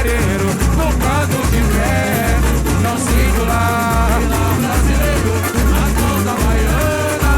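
Samba-enredo music from a samba school's bateria and band: deep surdo drum beats in a steady pulse under the percussion, with melody lines over them and no sung words.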